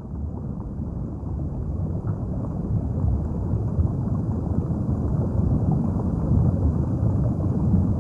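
Motorboat under way at sea: a steady low rumble of hull, water and engine, with wind buffeting the microphone, growing louder over the first few seconds.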